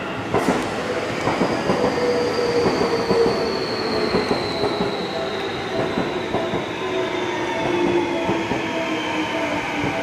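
Seibu 20000 series electric commuter train running slowly into the platform, its inverter and traction-motor whine falling steadily in pitch as it brakes, over the rumble of wheels on rail. A sharp click about half a second in.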